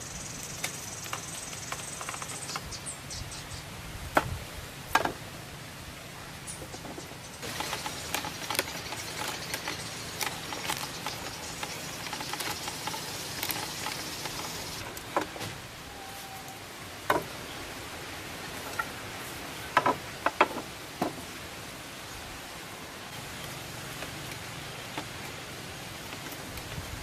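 Bamboo poles knocking and clicking against each other as they are handled and fitted into a frame, in scattered sharp knocks, some in quick clusters. A high steady hiss sits behind it for the first few seconds and again for a stretch in the middle.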